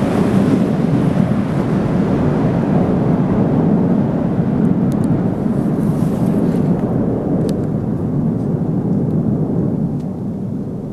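McDonnell Douglas MD-11F freighter's three jet engines at takeoff thrust as the plane climbs away: a deep, steady rumbling noise that grows duller and slowly fades over the last few seconds.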